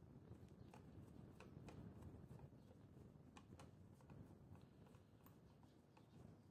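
Near silence, with faint irregular clicks of a screwdriver working the screw terminals of a contactor.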